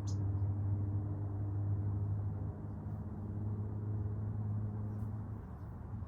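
A steady low engine hum that fades away about five seconds in.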